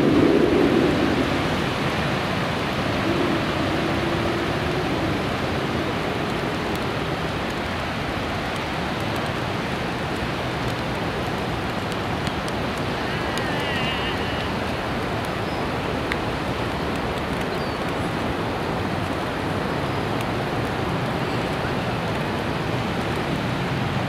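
A desert river in flash flood, its floodwater rushing in a steady, even roar. A low hum at the very start fades within about a second.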